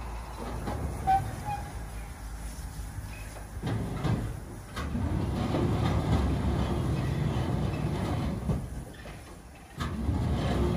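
A coaling crane's grab working over a narrow-gauge steam locomotive, with a low rumble of machinery and coal handling and a few clanks. The rumble swells about four seconds in, eases off, and rises again near the end.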